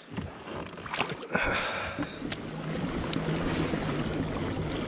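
A splash about a second in as the fish goes back into the water. Then water rushing along the hull of a pedal-drive kayak under way, with a steady low hum.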